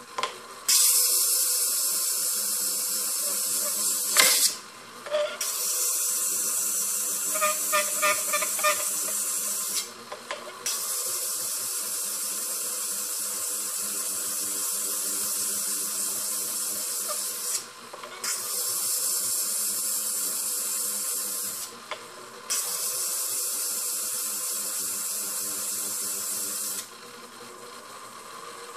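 Agate ring stone ground against a spinning, water-fed diamond lap on a faceting machine: a steady grinding hiss that breaks off briefly five times and stops near the end, leaving the machine's motor humming faintly.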